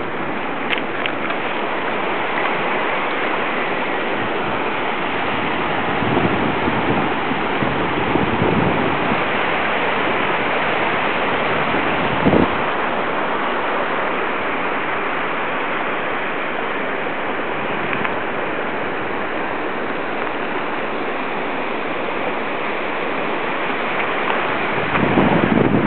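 Steady rush of river water flowing over a rocky bed, with one short knock about twelve seconds in.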